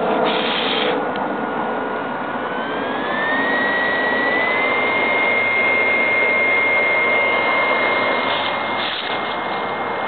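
BioLite wood-burning camp stove's fan spinning up, a thin whine that climbs in pitch between about two and five seconds in and then holds steady, over a steady rush of forced air through the burning sticks.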